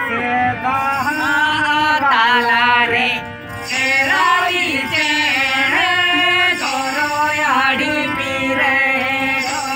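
Two portable harmoniums playing held chords and melody while a group of men sing a Santali song along with them.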